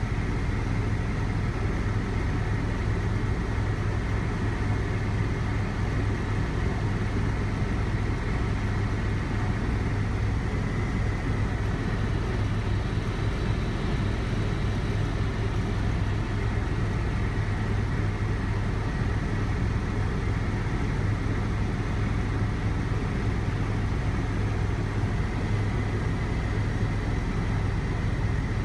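Helicopter in flight heard from inside the cabin: a steady, loud drone with a strong low hum and a thin high whine above it that stays unchanged throughout.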